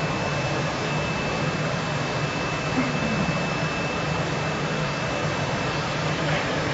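Vacuum cleaner running steadily: a constant motor hum with a thin, steady high whine over it.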